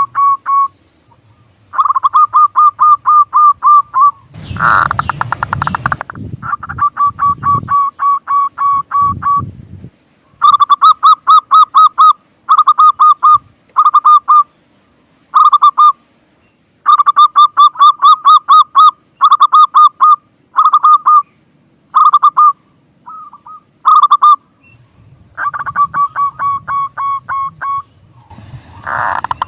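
Zebra dove (perkutut) calling: phrases of rapid staccato cooing notes, repeated over and over with short pauses between them. About five seconds in, and again near the end, a brief burst of noise sounds under the calls.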